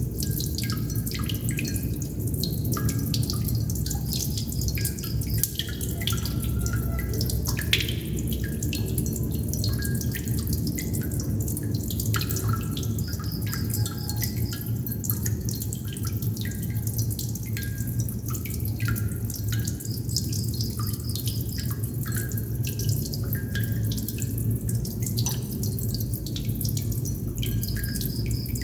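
Water droplets dripping continuously: many short, irregular plinks of varied pitch over a steady low hum.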